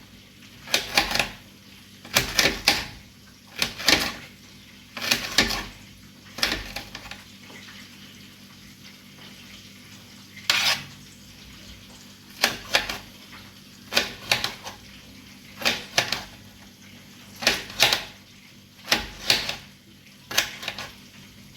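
Knife chopping okra on a cutting board: sharp single chops and quick pairs every second or two, with a pause of a few seconds midway.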